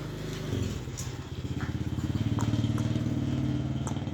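A motorcycle engine running, its note shifting about half a second in and growing louder over the next two seconds, with a few faint clicks on top.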